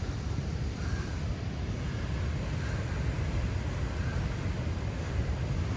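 Steady low rumble of Pacific Ocean surf breaking on the shore, mixed with wind on the microphone.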